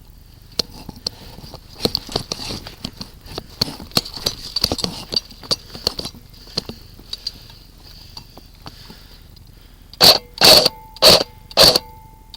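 A person coughing: five loud coughs in quick succession near the end, after several seconds of light clicking and rustling.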